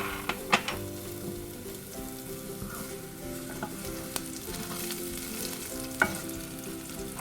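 Cumin and mustard seeds sizzling in hot oil for a tadka (tempering), a steady frying hiss with a few sharp pops as the seeds sputter.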